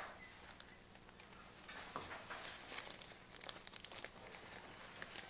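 Faint clicks and light metallic clinks of small hardware, bolts and spacers, being handled, coming thicker from about two seconds in.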